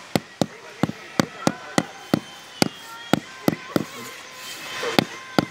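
Rubber mallet tapping a concrete floor tile down into its bed of wet mortar: a run of short knocks, about three a second, pausing about four seconds in and resuming with two more knocks near the end.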